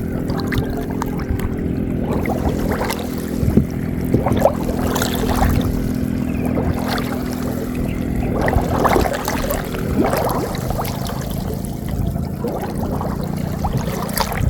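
Water splashing and dripping as a gill net is handled over the side of a small boat, in many irregular small splashes and trickles, with a steady low hum underneath.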